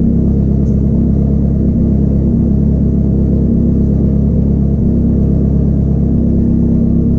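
Kawasaki Ninja 250R's parallel-twin engine idling steadily with the bike at a standstill.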